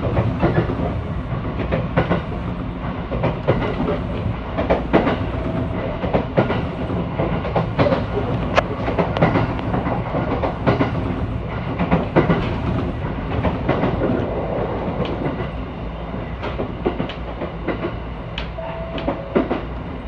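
Train running along the line, heard from inside the passenger car: a steady low rumble with irregular clacks of the wheels over the rails.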